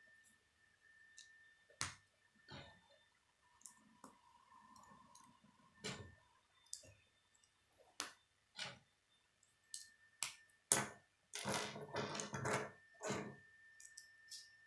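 Plastic K'nex rods and connectors clicking as they are snapped together by hand, in scattered sharp clicks. About two-thirds of the way through there is a couple of seconds of denser rattling clatter of plastic pieces.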